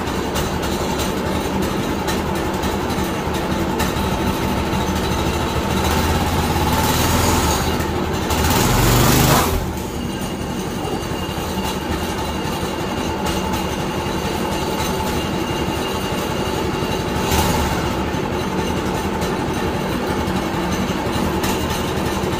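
Harbor Freight Predator 212 single-cylinder overhead-valve engine on a minibike, running on its first start after being fitted, its first heat cycle. It is revved up for a few seconds about seven seconds in, drops back sharply, and is blipped once more briefly near the end.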